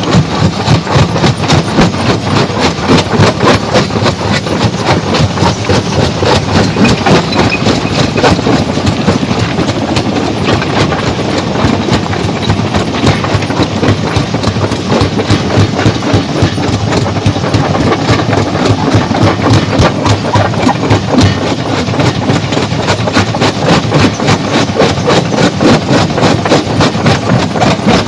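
Stone crushing machine running, with a continuous loud rapid clatter of rock being broken.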